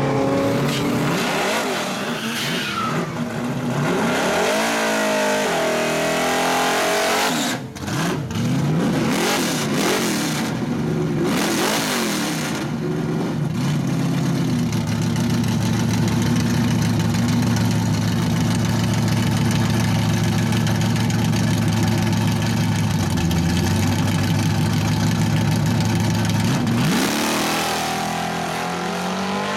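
Drag cars' engines at the start line, including a Fox-body Ford Mustang on drag slicks: revs rising and falling for the first dozen seconds, then a loud steady idle for about a dozen seconds, and the revs climbing again near the end as the cars stage.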